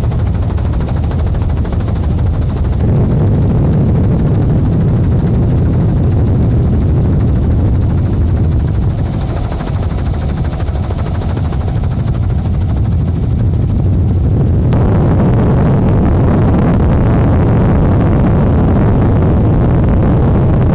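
Helicopter engine and rotor noise, a loud steady rumble. The sound changes abruptly about fifteen seconds in, with the high end dropping away.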